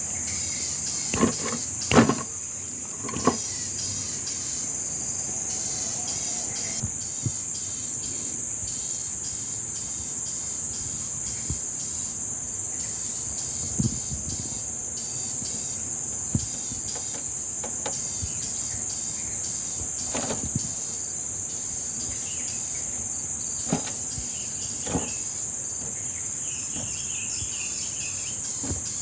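Steady high-pitched insect chorus, with scattered short sharp clicks and knocks, the loudest few about two seconds in.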